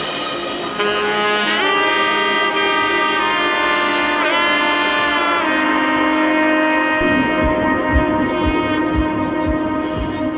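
Background music: a sustained melodic lead with sliding notes over held chords, with a steady low beat coming in about seven seconds in.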